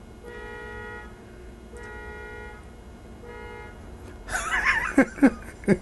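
Three steady, horn-like toots, each under a second long, about a second and a half apart. Near the end, a louder stretch of a man's voice follows.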